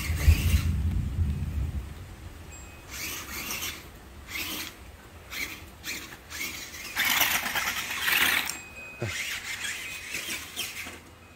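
Battery-powered Grave Digger Freestyle Force RC monster truck driving in short spurts, its electric motor and tyres running in about five bursts of a second or so each. A low rumble comes first.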